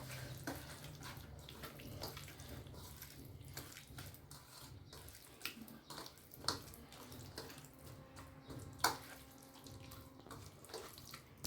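Hands mixing chicken pieces with a wet spice-and-oil marinade in a bowl: faint wet sounds with scattered soft clicks, a few sharper ones about halfway through and near the end.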